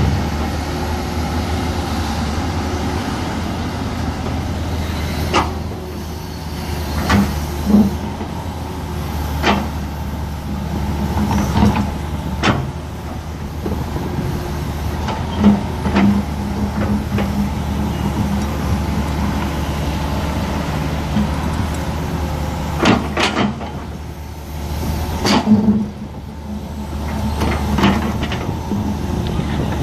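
Hitachi 200 Zaxis crawler excavator's diesel engine running steadily, with sharp knocks and clatters at irregular moments as its steel bucket digs and scrapes through dirt and broken concrete chunks.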